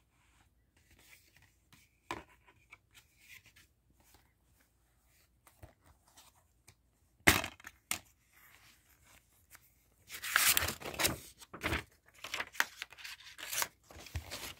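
Plastic DVD case being handled and opened: a sharp snap about seven seconds in, then several seconds of crinkling, rustling plastic with clicks from the case and its contents.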